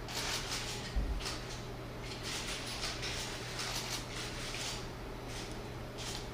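Faint, irregular rustling and shuffling of a small theatre audience over a steady low hum, with one soft thump about a second in.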